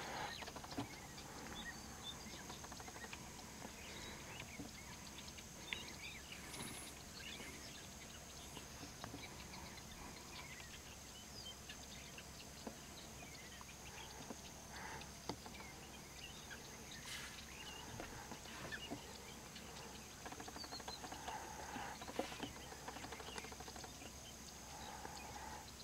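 Faint outdoor ambience: scattered short chirps of distant small birds over a steady high-pitched hum.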